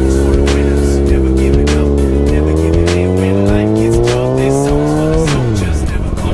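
Kawasaki ZX-6R's inline-four engine through an Austin Racing GP1 exhaust, revving steadily higher under acceleration for about five seconds, then the revs fall sharply near the end.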